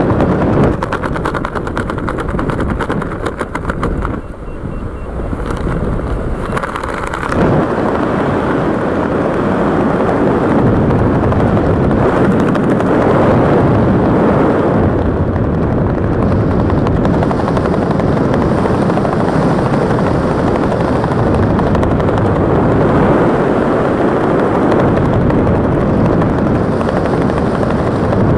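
Wind rushing and buffeting against the camera microphone during a parachute descent. A rapid flutter comes in the first several seconds, then from about seven seconds in it settles into a steady, loud rush.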